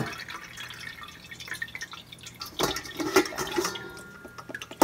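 Water dripping and trickling from rinsed bones and vegetables through a stainless steel colander into a metal bowl below, with a few knocks about halfway through as the colander is handled.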